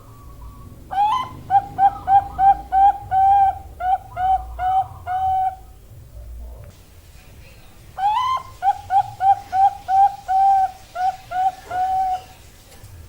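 Female Bangkok-strain zebra dove (perkutut) singing two cooing phrases. Each phrase opens with a rising note followed by a quick run of short, even coos, about three a second.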